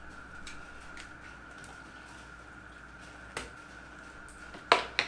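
Small metal clicks and taps of a hex driver and screws as the brushed motor is unscrewed from a 1/10 RC touring car chassis: a few light ticks, a sharper click a little past three seconds in, and two loud sharp clicks close together near the end.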